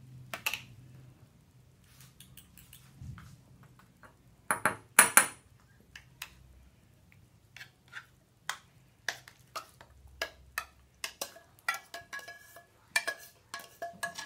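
Metal spoon clinking and scraping against the inside of an open tin can while canned fruit cocktail is scooped out: a run of quick clinks that ring in the later part. A louder double clatter comes about five seconds in.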